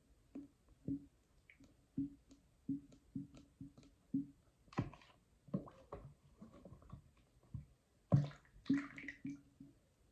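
Wet squelching as a squeeze applicator bottle of bleach mix is squirted onto a soaked wig and the wet hair is worked by hand: a run of short, separate squelches, the loudest group about eight seconds in.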